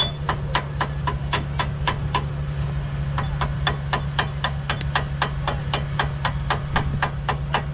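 Sharp, even ticking, about four clicks a second with a short pause partway through, over the steady hum of an idling engine.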